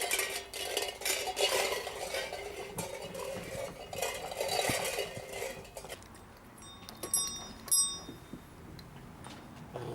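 Metal dishes clattering and clanking, busy for about six seconds, then two ringing clinks about half a second apart.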